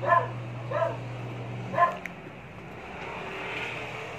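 A small dog yipping three times in quick, high, whiny calls about a second apart.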